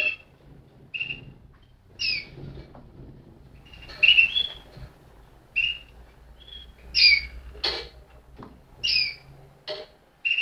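Malinois (Waterslager) canary giving short chirps about once a second, several sliding downward in pitch.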